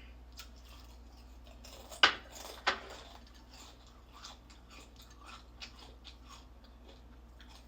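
Close-up chewing of crispy fried chicken: crackly crunches and mouth clicks, with two louder crunches about two seconds in, over a steady low hum.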